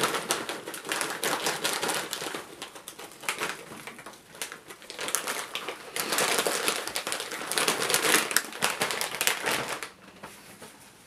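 A plastic snack bag of popcorn crinkling and rustling as it is handled and rummaged in. The sound is a dense run of crackles and sharp clicks that dies away near the end.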